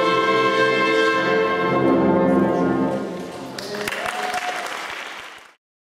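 A student wind ensemble holds its brass-led final chord, which dies away about three seconds in. Audience applause starts just after, and the sound cuts off suddenly near the end.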